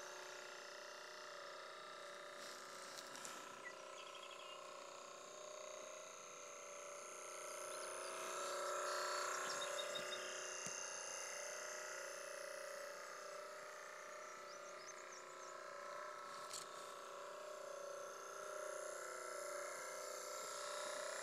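Small battery-powered electric motor of a vintage Fleet Line wooden toy boat running steadily, a thin whine with several pitches at once. It grows louder about halfway through, then fades a little.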